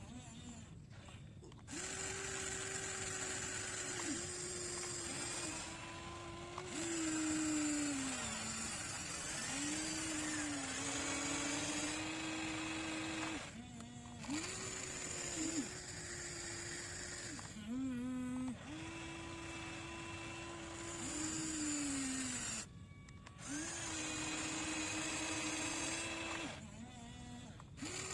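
Electric motor and hydraulic pump of a radio-controlled excavator whining in runs of a few seconds as the machine works. The pitch sags at times under load, and the runs stop and start again several times.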